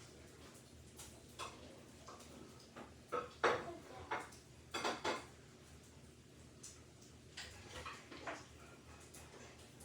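Small hard objects being handled and set down: scattered light clicks and knocks, with a cluster of louder clatters around the middle.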